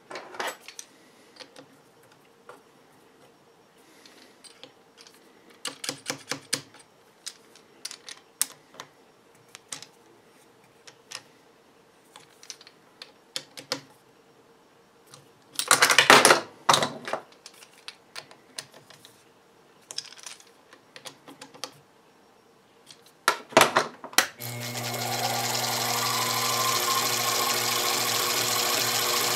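Metal clicks, taps and scrapes of a tool working the jaws of a small four-jaw independent chuck as a part is locked down. About three-quarters of the way through, a Sherline mini mill's spindle motor switches on and runs steadily, its whine rising briefly as it comes up to speed.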